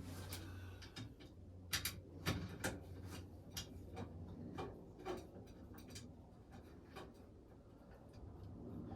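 Faint, irregular light clicks and metal taps from parts of a stove flue being handled and fitted, the sharpest few about two seconds in, over a low steady hum.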